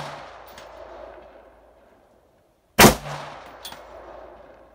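A 12.5-inch-barrel AR-15 in 5.56 fires a single shot about three seconds in, with a long echo rolling down the range; the echo of a shot fired just before is dying away at the start. Under a second after each shot comes a faint, short clang: the bullet hitting the steel silhouette at 245 yards.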